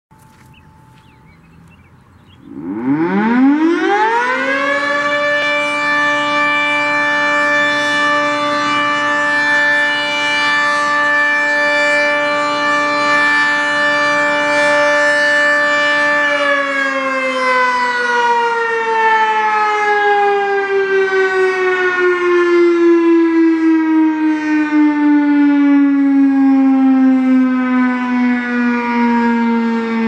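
Federal Signal 3T22 three-tone outdoor warning siren on a test run: about two and a half seconds in it winds up quickly to a steady multi-tone wail, holds it, then from about sixteen seconds in slowly winds down, the pitch falling steadily.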